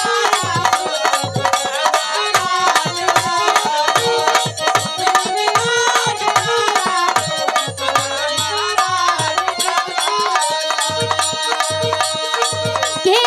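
Instrumental passage of a Bhojpuri folk song: a fast, steady hand-drum rhythm under a melody line.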